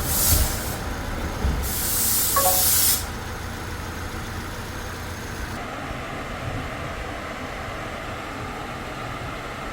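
Two short bursts of refrigerant gas hissing at the AC charging fitting as the recharge is completed, the second the longer, over the steady running of the car's engine.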